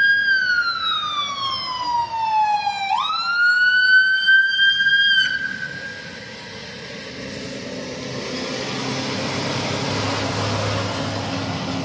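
Emergency vehicle siren wailing: it falls, sweeps back up about three seconds in, holds, then cuts off suddenly about five seconds in. After it stops there is a steady rumble and hiss with a low engine hum.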